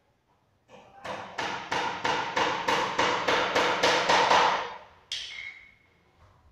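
Hand saw cutting through wood in quick back-and-forth strokes, about three a second, for about four seconds before stopping. A short ringing clink follows.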